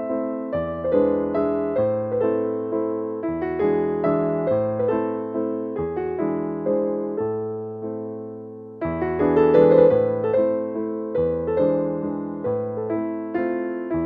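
Background piano music: a slow melody of struck, decaying notes over chords and bass notes that change about once a second. Near the end it dies down briefly, then a new, louder phrase starts about eight and a half seconds in.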